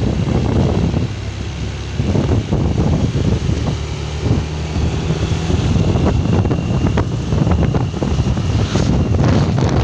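Wind buffeting the microphone of a moving vehicle, over a steady low rumble of engine and road noise.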